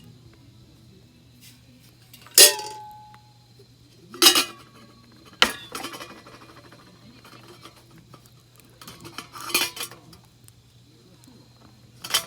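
Metal camp cookware and utensils knocking and clinking in about five separate hits, the first ringing briefly.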